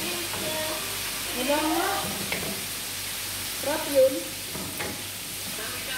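Food sizzling in oil in a frying pan on a gas stove, stirred and scraped with a wooden spatula, with a sharp knock about four seconds in.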